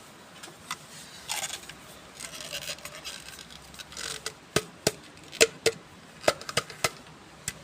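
Rubbing and scraping, then a run of sharp clicks and taps in the second half.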